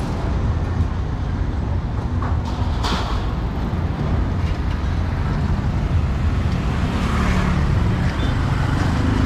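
Street traffic: a steady low rumble of passing vehicle engines.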